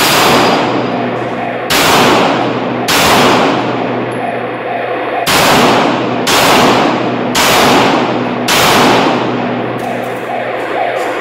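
Seven handgun shots, one, then two, then four, roughly a second apart. Each shot rings on with a long echo in the indoor range's concrete room.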